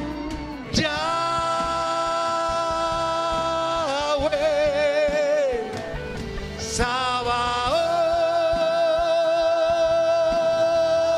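A man singing two long, held notes with vibrato into a microphone, over the worship band's backing music, with a softer wavering passage between them.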